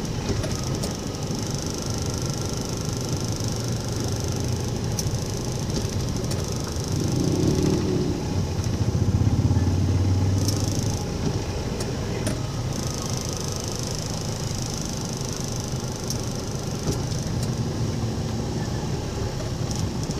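Street traffic: vehicle engines running steadily, with one vehicle passing closer and louder about eight to ten seconds in.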